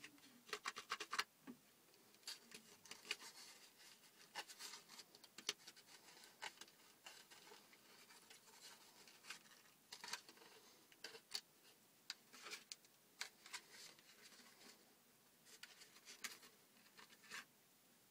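Faint, scattered clicks and scrapes of a homemade cardboard model pistol being handled, its parts rubbing and knocking together.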